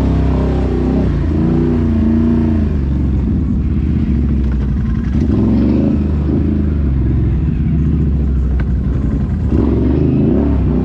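ATV engine running and revving, its pitch rising and falling repeatedly.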